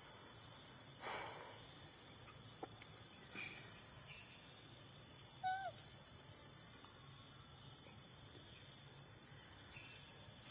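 Steady, high-pitched chorus of insects, with one short chirp about halfway through.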